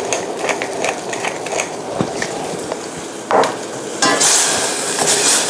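A wooden pepper mill being twisted, giving a run of quick grinding clicks. From about four seconds in, a wooden spatula stirs spinach in a hot saucepan with a louder, steady hissing sizzle.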